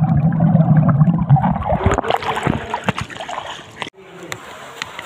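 Muffled underwater swimming-pool sound, with water gurgling and splashing around a phone held under the surface, and a low wavering drone through the first two seconds. It cuts off sharply just before 4 s.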